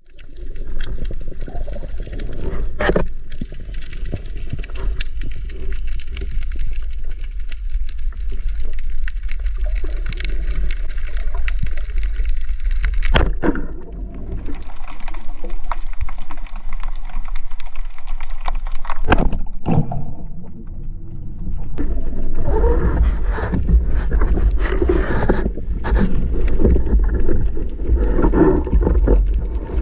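Underwater noise as picked up by a camera in its waterproof housing: a steady low rumble of water moving over the housing with rustling and scattered clicks, and a few sharp knocks of gear against the housing. The rumble and rustling grow busier and louder about two-thirds of the way through.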